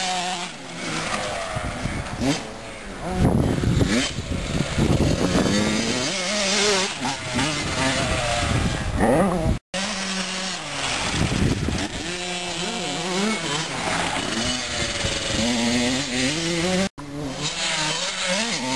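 Small youth motocross bikes revving up and down as they ride a dirt track, their engine pitch rising and falling with throttle and gear changes. The sound breaks off abruptly twice where shots change.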